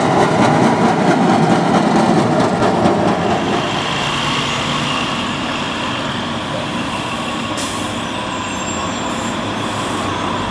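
A rail vehicle rumbling past, with rapid clicking from the wheels. The noise eases off about three seconds in, leaving a quieter, steady hum of street traffic.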